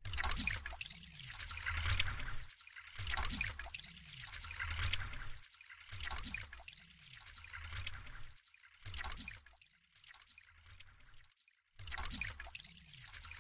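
Water trickling from a drinking-water machine, time-stretched, pitch-shifted and looped, so the same gush of water repeats about every three seconds with brief gaps between repeats. A gain envelope fades it to almost nothing past the middle, and it comes back near the end.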